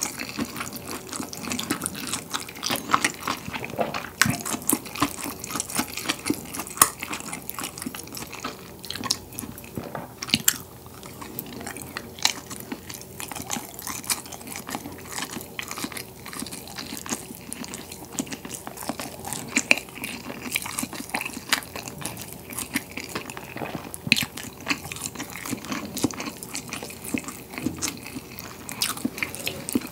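Close-miked eating: chewing a mouthful of chewy, spicy jjolmyeon noodles mixed with bean sprouts, cabbage and fried pork cutlet, a steady stream of small wet clicks, smacks and crunches.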